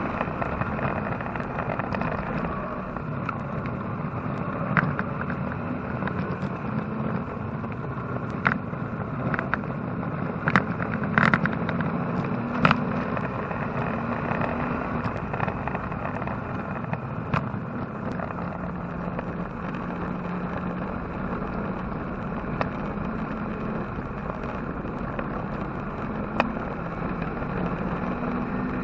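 Chevy-engined Porsche 944 race car heard from inside the cabin while driving on track: the engine runs under load, its pitch shifting up and down, over steady road and wind noise, with a few sharp knocks and rattles.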